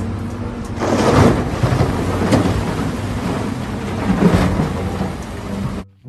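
A steady low rumble with a loud rushing noise over it, swelling about a second in and again twice more, then cutting off suddenly just before the end.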